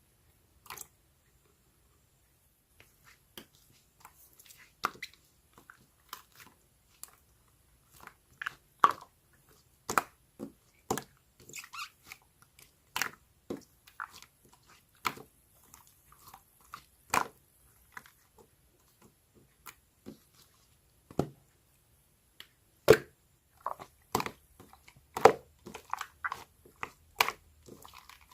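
Slime being squeezed and poked by hand, giving irregular sharp clicks and pops as trapped air bursts. Only a few come in the first seconds, then they fall close together.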